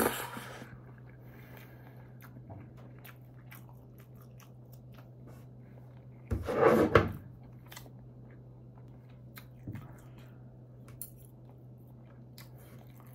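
A person eating: faint chewing and small scattered clicks over a steady low hum. A louder eating noise lasting about a second comes about six seconds in.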